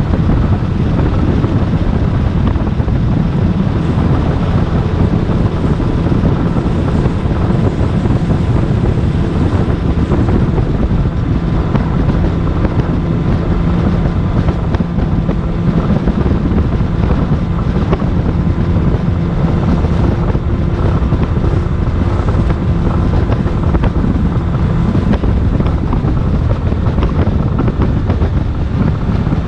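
Wind rumbling on the microphone, loud and steady, with a faint steady hum underneath.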